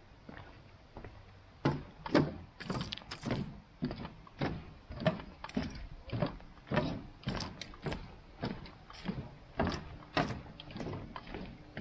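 Footsteps going down a flight of stairs, about two steps a second, starting a little over a second in.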